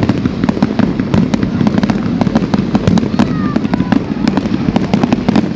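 Fireworks going off: many rapid, irregular sharp cracks and pops from crackling bursts and fountains, over a steady low rumble.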